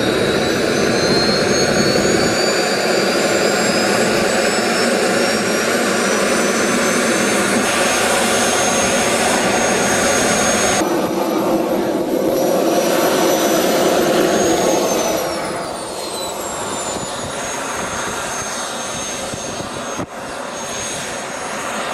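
RC model jet's microturbine whining as it spools up, its pitch climbing steadily for several seconds and then holding. About fifteen seconds in the pitch rises briefly, then falls away, and the turbine settles to a lower, quieter whine as it is throttled back.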